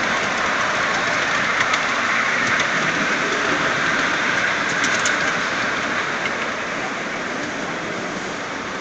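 Steady rolling noise of a 5-inch gauge ride-on model train running along its track, with a few light clicks from the wheels and rails.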